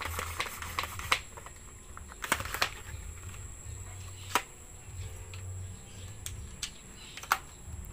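Handling noise from a PVC toy gun with a telescopic scope and clamped phone mount: a few sharp, separate clicks and taps spread over several seconds, over a low hum that comes and goes.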